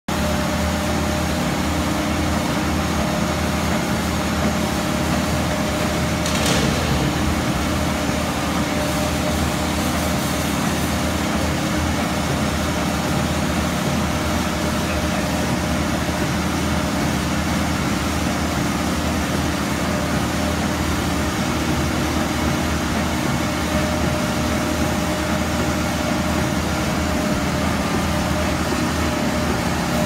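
Junjin truck-mounted concrete boom pump running steadily, its diesel engine drone carrying a steady higher whine. There is a brief hiss about six and a half seconds in.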